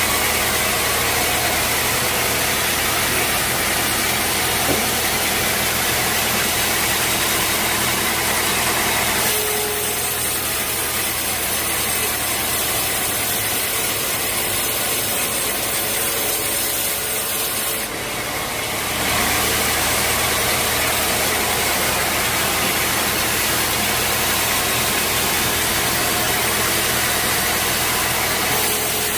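Sawmill machinery running steadily, a low motor hum under a wide hiss, its sound changing abruptly about nine seconds in and again about eighteen seconds in.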